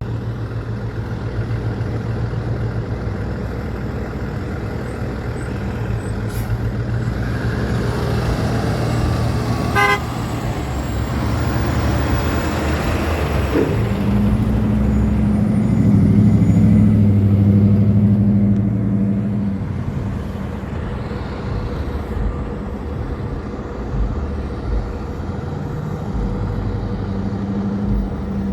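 Big trucks' diesel engines running as they drive past, loudest about halfway through.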